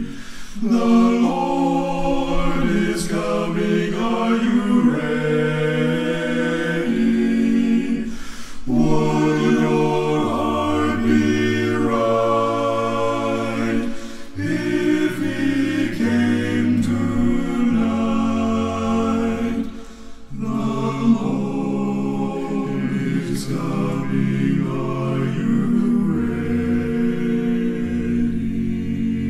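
Male gospel vocal group singing a cappella in close harmony, a bass voice carrying the low line, with short breaks between phrases.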